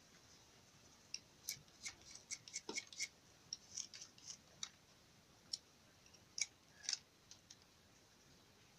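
Irregular run of short, crisp snips and clicks from a small hand tool working the little wooden tufo plugs for a nambu bird-call whistle. The snips come thick and fast early on, then thin out, with two louder snaps near the end.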